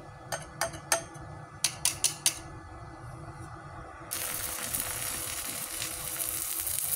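Stick-welding arc from a 2 mm electrode on a small inverter welder set to its lowest amperage: a run of about seven sharp taps as the rod is struck against the steel plate, then from about four seconds in a steady crackling sizzle as the arc catches and holds.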